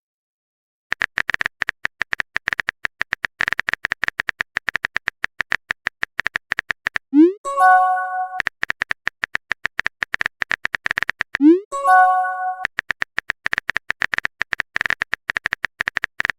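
Texting-app sound effects: rapid phone-keyboard typing clicks, twice broken by an upward swoop and a short chime-like message tone as a text is sent or received.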